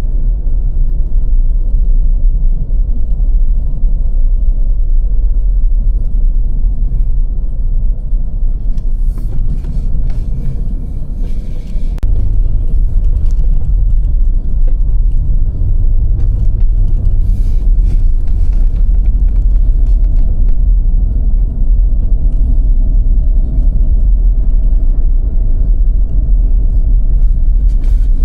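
Car driving on snow-covered roads: a loud, steady low rumble of road and engine noise, with a few brief hissing stretches midway.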